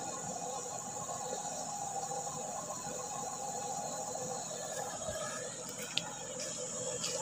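Low running of a distant Volvo truck engine under a steady high-pitched insect chorus from the forest, with one sharp click about six seconds in.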